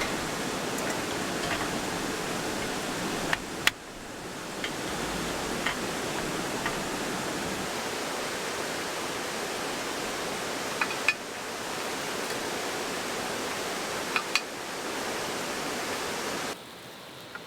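Valley stream water rushing steadily, with a few sharp clicks. The sound shifts abruptly about four seconds in and drops to a quieter hiss near the end.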